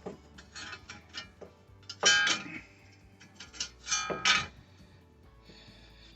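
Metal brake parts clinking and ringing twice, about two seconds apart, with a few lighter ticks between: brake pads and their spring clips being handled at the caliper bracket.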